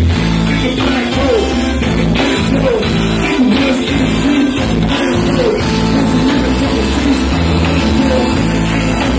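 A live rock band playing: electric guitar and keyboard over a steady bass line, with a singing voice.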